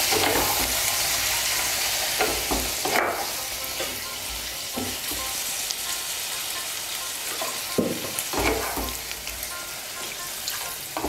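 Potato and soya-chunk curry sizzling in a hot non-stick kadai as water is poured in, with a spatula scraping and stirring through it every so often. The sizzle is loudest at first and gradually dies down.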